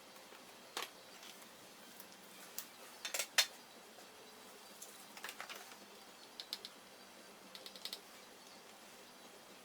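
Scattered clicks and taps from a Toshiba Qosmio G40 laptop's parts being handled during teardown, with short runs of rapid ticking. The loudest is a pair of sharp clicks about three seconds in.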